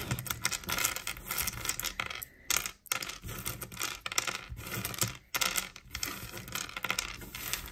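Small clear plastic Lego pieces clicking and clattering against each other in irregular bursts as hands rummage through and handle a pile of them on a tabletop.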